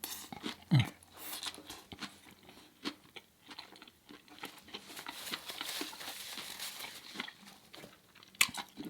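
Close-miked eating of a burger: irregular biting, chewing and crunching.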